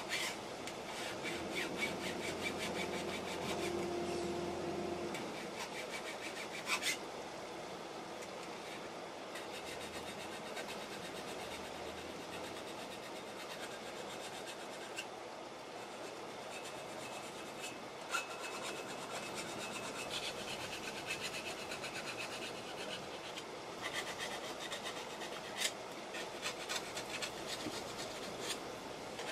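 A small flat needle file rasps in quick short strokes against the window edges of a thin brass train-car side panel, bevelling them to a slant. A few sharper clicks stand out.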